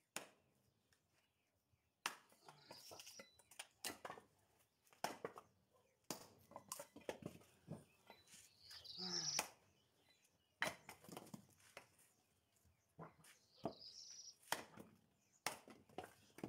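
Hatchet striking and splitting firewood on a wooden chopping block: about a dozen sharp, irregular chopping knocks.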